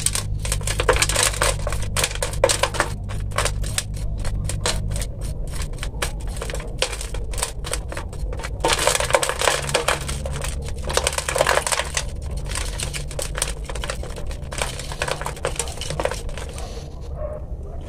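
Bonsai substrate being scraped and raked off a tree's root ball with a plastic root rake, the loose grains falling into a plastic tub below as rapid, irregular clicks and scratching.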